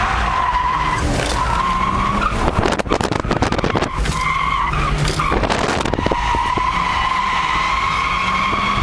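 BMW M3 drifting, heard from inside the cabin: tyres squealing in a long steady whine over the running engine. The squeal breaks up for a couple of seconds in the middle amid a rapid clatter, drops out briefly again, then holds steady to the end.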